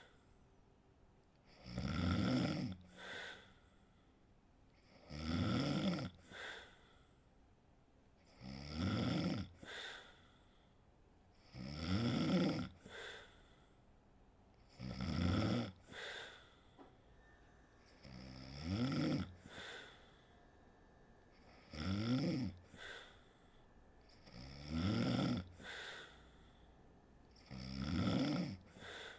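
A sleeping woman snoring in a steady rhythm: nine loud, buzzing snores, about one every three seconds, each followed by a shorter, softer breath.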